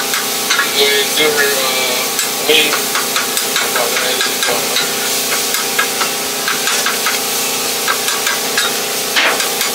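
Food frying in a deep fryer: hot oil sizzling and crackling steadily, over a constant mechanical hum.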